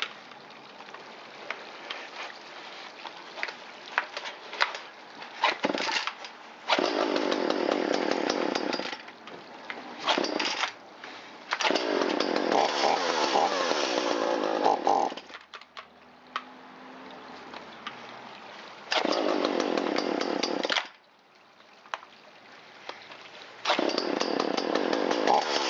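Echo CS370 two-stroke chainsaw engine catching and running in about five short bursts, its pitch rising and falling, and cutting out between them. It won't take throttle and keeps dying, which the owner puts down to leaking crankcase seals.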